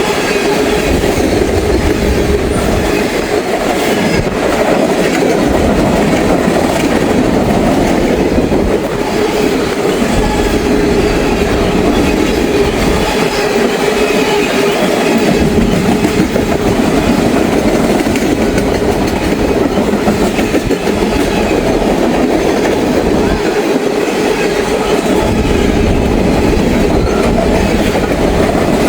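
Norfolk Southern freight train's cars rolling past at speed: a steady, loud rumble of steel wheels on rail.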